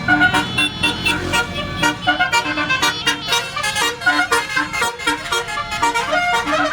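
A bus's basuri telolet horn playing a fast tune of short, bright horn notes, over a low engine rumble.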